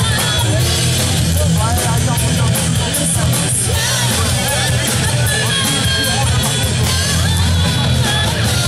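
Live rock band playing loud: distorted electric guitar, bass guitar and a driving drum kit, steady throughout.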